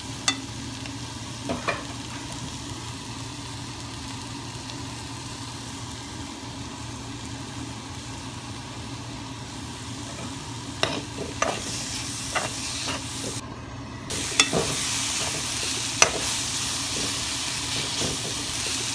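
Sliced bitter gourd and potato frying in oil in a metal wok with a steady sizzle. A metal spoon stirs them and now and then clicks and scrapes against the pan. The sizzle cuts out briefly about two-thirds of the way through and comes back louder.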